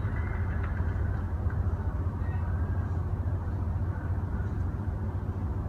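Steady low rumbling background noise with a faint hiss above it, even throughout, with no distinct knocks or voices.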